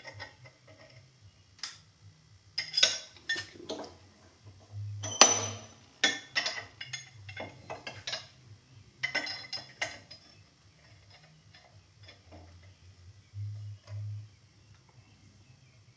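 Scattered metal clinks and clanks as a steel motorcycle swingarm, bushing and nut are handled and clamped against the jaws of a bench vise, with the loudest clank about five seconds in. The bushing is being pressed in flush with a nut.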